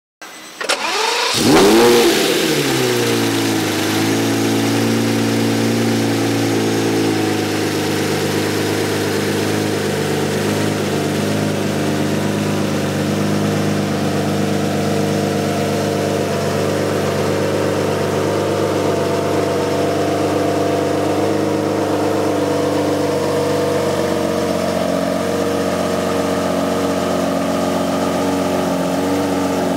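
Lamborghini Murciélago LP670-4 SuperVeloce's 6.5-litre V12, breathing through a Larini sport exhaust and sport catalysts, starting up. It flares up in revs as it catches, about two seconds in, then drops back and settles to a steady idle.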